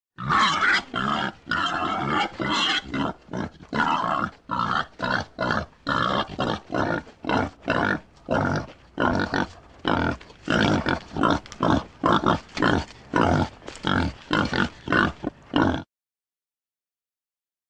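Wild boar grunting: a dense run of rough grunts at first, then short grunts in quick succession, about two a second, that stop about sixteen seconds in.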